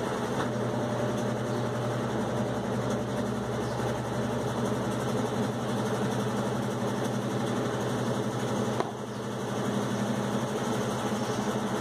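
Steady machine hum with a low buzz, dipping briefly about nine seconds in.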